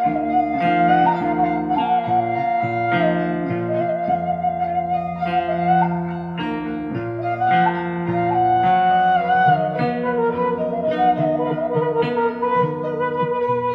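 Background music: plucked string notes under a held, slightly wavering melody line.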